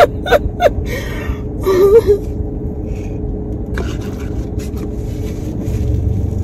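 Cardboard fast-food carton and paper wrapping being handled, giving scattered crinkles and taps, with a brief hummed "mm" about two seconds in. A steady low hum of the car cabin runs underneath.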